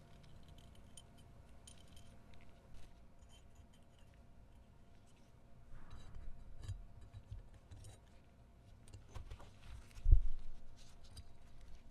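Small metal parts clicking and clinking lightly as they are handled, with a few soft knocks and one louder low thump about ten seconds in.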